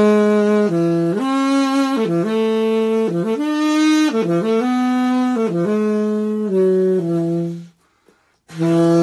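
Music: a single wind instrument, sounding like a saxophone, plays an unaccompanied melody of held notes. The phrase ends near the end, and after a brief pause a new phrase begins.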